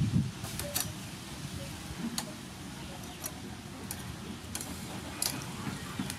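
Metal tongs clicking against a wire grill rack as marinated quail are laid on it: a handful of sharp, irregular ticks spaced a second or so apart, over a low steady rumble.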